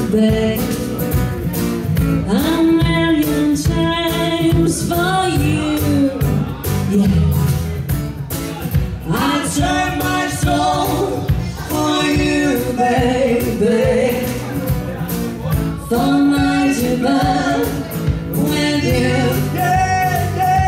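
Live pop song: a woman singing over acoustic guitar and a steady drum beat.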